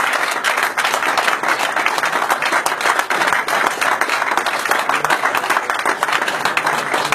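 Audience applauding steadily: dense clapping from a roomful of people, holding at an even level throughout.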